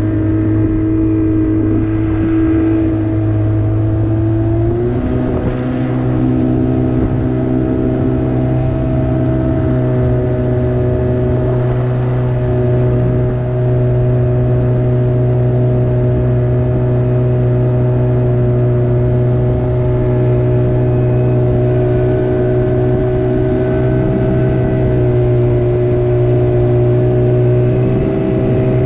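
30-horsepower Evinrude outboard motor running steadily under way on a small john boat, its pitch stepping up about five seconds in and then holding.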